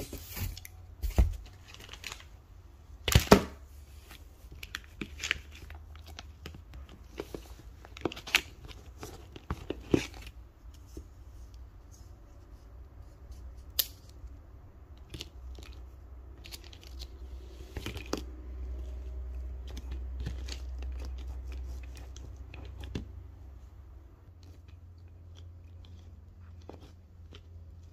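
Irregular scratching and rustling of paper as numbers on a hand-made chart are coloured in, with a few sharper knocks in the first ten seconds.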